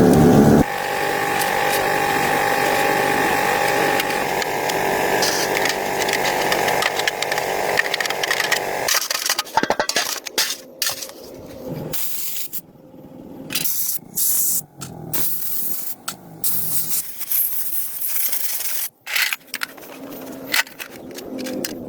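A power tool runs steadily with a held whine for about eight seconds. Then comes a string of short, abruptly cut bursts of workshop tool noise and sharp knocks.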